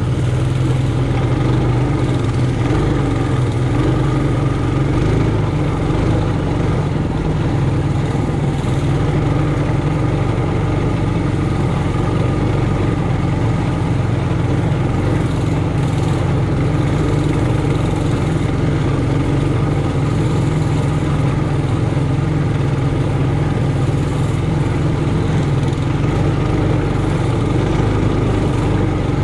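Trailmaster Hurricane 200X mini bike's single-cylinder four-stroke engine running at a steady, even speed.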